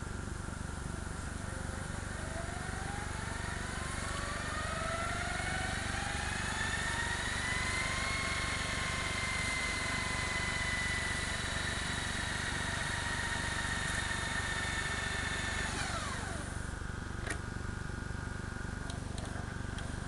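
Panasonic PV-D4745S VCR's tape transport winding the tape at fast-forward speed: a whine that rises in pitch as the reels spin up, holds nearly steady, then drops away quickly as the transport stops, followed by a mechanical click. A steady low hum runs underneath.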